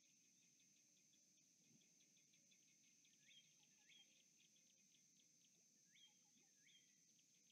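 Faint outdoor wildlife ambience: a steady high insect drone with rapid ticking chirps. Over it come four short upward-sweeping bird calls in two pairs, about three and a half and six seconds in.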